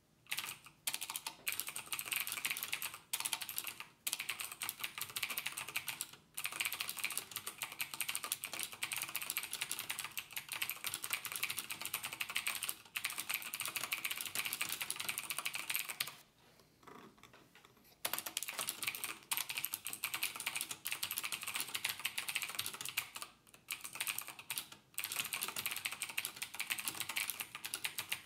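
Rapid typing on a computer keyboard: a dense run of key clicks broken by short pauses, the longest about sixteen seconds in and lasting nearly two seconds.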